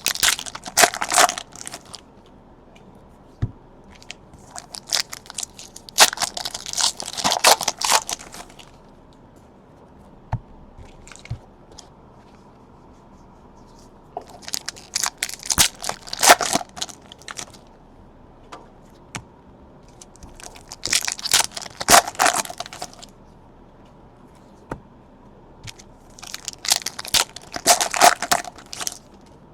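Trading-card pack wrappers being torn open and crumpled by hand: five separate crackly bursts of crinkling and tearing, with quiet gaps between them.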